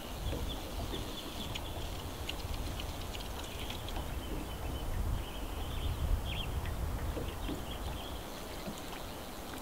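Outdoor lake ambience: a steady low rumble of wind on the microphone under many faint, high chirps from small birds.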